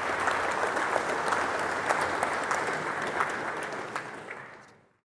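Audience applauding: a dense patter of hand claps that fades out near the end.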